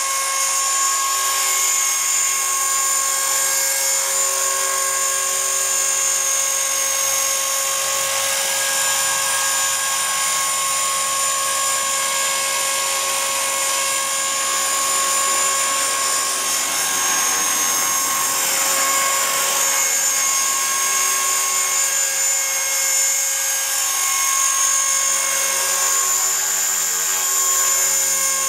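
EXI 450 SE electric RC helicopter hovering: a steady, high-pitched whine from its motor and drive gears over the hiss of the spinning rotor blades, the pitch wavering slightly as it holds the hover.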